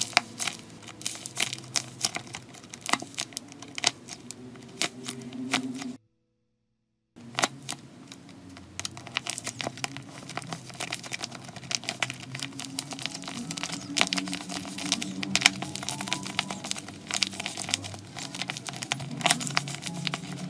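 Handmade watermelon paper squishy with pop-it bubbles being squeezed and pressed by hand: its tape-wrapped paper crinkles with many sharp crackles and pops. The sound cuts out completely for about a second, some six seconds in.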